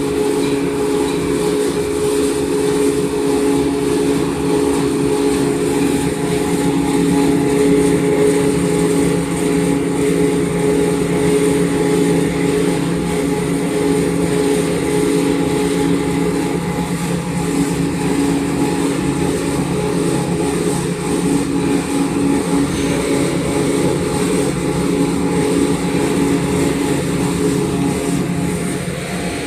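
Bar soap production line machinery running with a steady motor hum and two constant tones that hold throughout.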